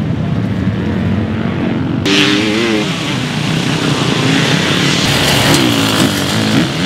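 Off-road dirt bike engines running and revving, the pitch rising and falling twice as the bikes ride through.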